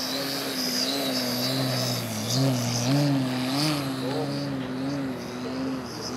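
Propeller of a giant-scale Extra 330SC RC plane, driven by a Dualsky GA6000-8 electric brushless outrunner, in flight. It makes a steady drone whose pitch wavers up and down, with a fainter high whine above it. It grows louder for about a second around the middle.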